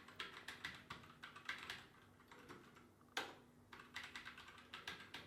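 Keys clacking on a Royal Kludge RK61 60% mechanical keyboard as a message is typed: quick, irregular keystrokes with a short lull around the middle and one heavier keystroke just after it.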